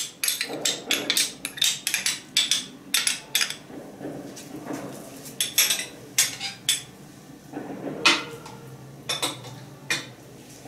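A spoon tapping and scraping against a plastic blender jar as spoonfuls of fresh cream go in: irregular sharp taps in about three bursts.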